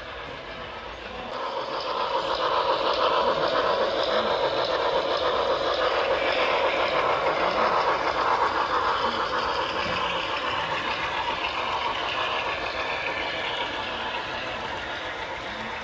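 HO-scale model train running past on the layout. Its running noise swells about a second in, stays loudest for several seconds, then slowly fades.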